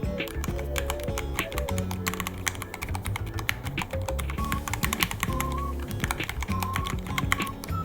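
Fast, irregular typing on a Ducky One 3 mechanical keyboard, a steady stream of key clicks. Background music plays underneath.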